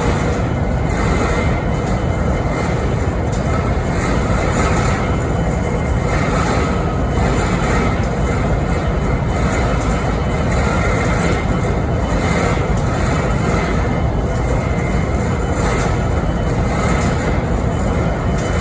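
BNSF diesel-electric locomotive idling, a loud steady drone with a thin whine on top; the strange noise it is making at idle.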